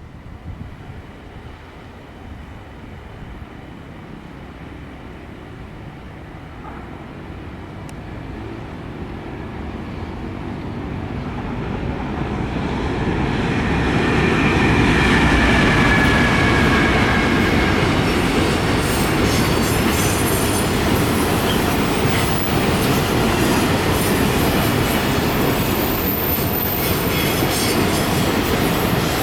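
A train approaching, growing steadily louder over about fifteen seconds, then passing close by with a rapid clickety-clack of its wheels over the rail joints.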